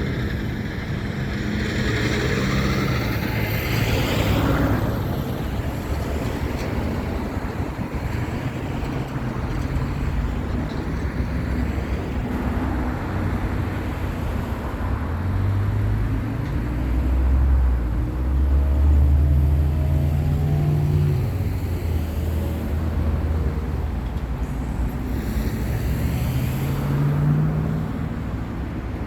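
Road traffic: cars and other vehicles passing and pulling away, engines rising and falling over a constant tyre-and-road rush. The loudest moment is a deeper engine going by from about 16 to 21 seconds in.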